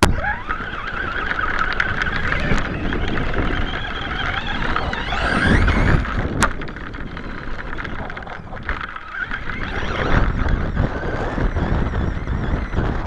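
Traxxas Stampede VXL RC monster truck's brushless electric motor and gear drive whining, picked up by a camera on board, over heavy wind and ground rumble. The whine rises in pitch about five seconds in, and a sharp click follows a second later.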